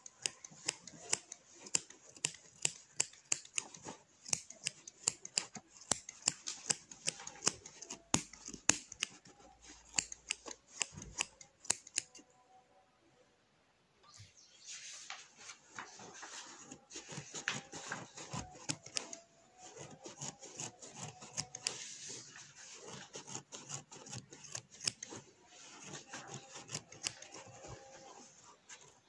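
Small curved Singer embroidery scissors snipping quickly, several sharp snips a second, through the thread loops of punch-needle embroidery to shear them into a cut pile. The snipping stops for about two seconds near the middle, then starts again over a soft rustle of fabric and thread.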